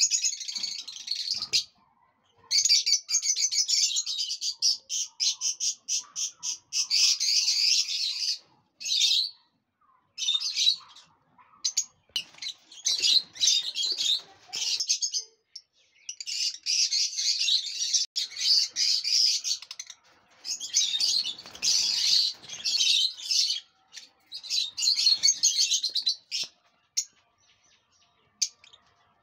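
Lovebirds chattering: rapid, shrill high-pitched chirps in bouts of a few seconds with short breaks between.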